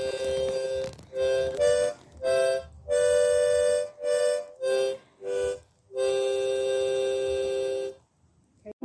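Harmonica played by a beginner: a run of two-note chords, some short and some held about a second, ending in one long chord of about two seconds.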